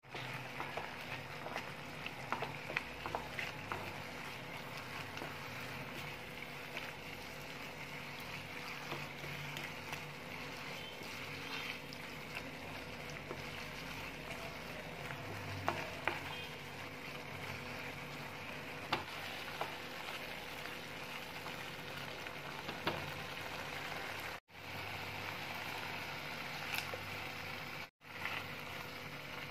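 Prawns and spice masala sizzling and frying in a pan, with scattered clicks and scrapes of a wooden spatula stirring against the pan. The sound cuts out briefly twice near the end.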